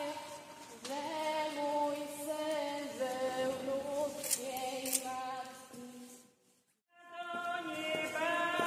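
Folk singing group of women and men singing an old Polish Lenten hymn a cappella in a large church, holding long, slowly shifting notes together. The sound drops out for under a second about six seconds in, then the singing resumes.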